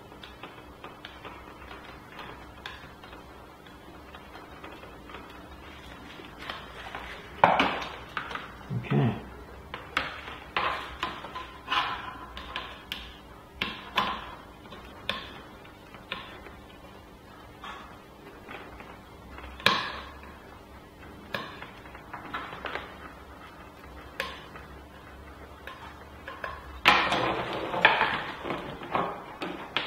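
Small tools and metal parts clicking, tapping and clattering on a workbench while bolts are fastened with a screwdriver. The knocks are irregular and sharp, busiest about seven seconds in and again near the end.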